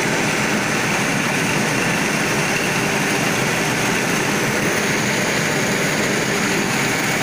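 High-speed 1+6 skip stranding machine for 630 mm bobbins running, its cradles spinning: a loud, steady mechanical noise that does not change.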